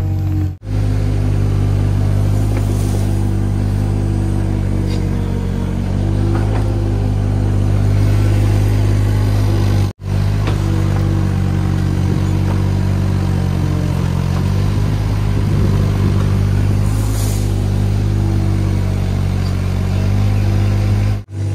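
Mini excavator's diesel engine running steadily under hydraulic load while it digs, its note sagging and recovering now and then as the arm works. The sound breaks off for an instant twice.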